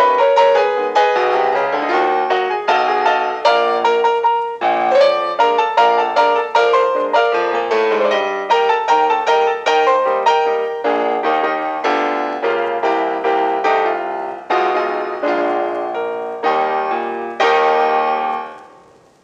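Background piano music: a steady stream of quick struck notes, ending on a last chord that fades out near the end.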